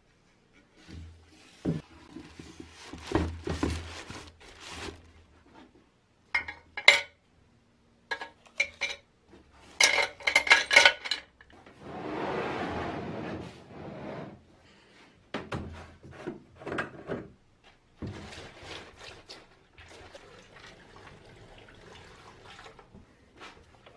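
Metal sprayer parts clinking and knocking as they are dropped one after another into a plastic-bag-lined box, with a shushing noise of about two seconds halfway through. Near the end, liquid rust remover is poured in from a bottle in a steady stream.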